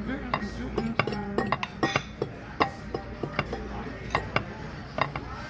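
Metal cutlery clinking and tapping against a plate while eating, about a dozen sharp clinks at an uneven pace, over low background music and chatter.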